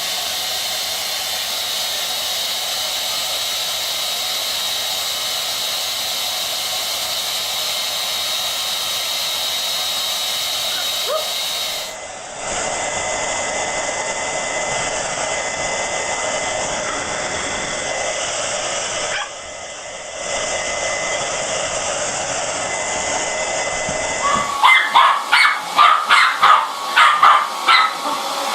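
Electric hair dryer blowing steadily with a thin high whine, the sound changing abruptly about halfway through. Near the end, a dog barks and yips rapidly, a few times a second.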